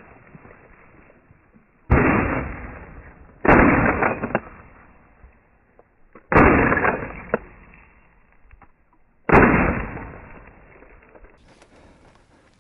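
Four loud shotgun shots, spaced unevenly over about eight seconds, each fading out over a second or more.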